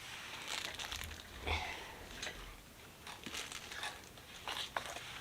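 Faint rustling, crinkling and a few light clicks from hands handling rifle-cleaning patches and kit parts, in short irregular bits.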